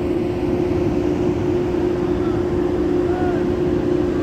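Steady hum of a ferry's machinery heard on deck, one constant tone over a low, uneven rumble.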